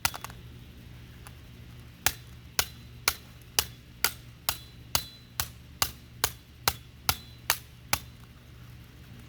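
Hammer striking a plastic Rubik's Cube with the edge of its head: one blow, then fourteen quick, sharp blows at about two a second.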